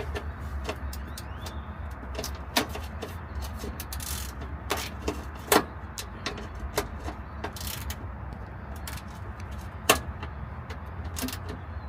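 Scattered clicks, clinks and knocks of hand tools working on a bolt under a steady low hum. The sharpest knocks come at about two and a half, five and a half and ten seconds.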